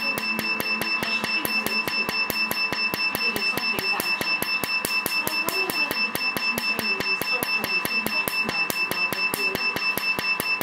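Handheld tattoo-removal laser firing rapid pulses into the skin: a sharp snap about five times a second, with a steady high-pitched tone running underneath.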